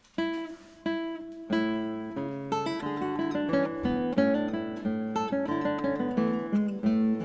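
Background music on solo acoustic guitar. It begins after a short silence with a few single plucked notes about two thirds of a second apart, then moves into a running melody over a bass line.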